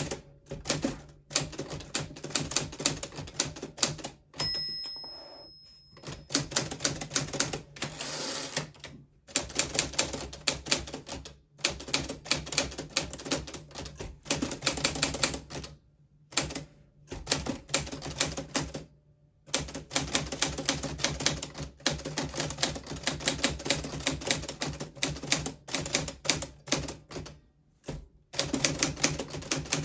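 Vintage Smith Corona Silent manual typewriter being typed on: quick runs of key strikes broken by short pauses. About four seconds in, a single ringing tone fades away, the typewriter's margin bell.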